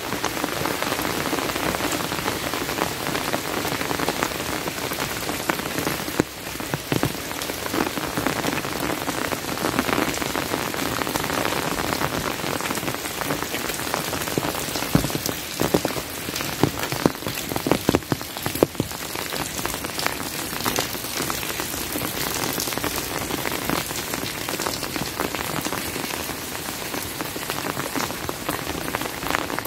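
Steady rain falling, with many close, sharp drop hits scattered all through it.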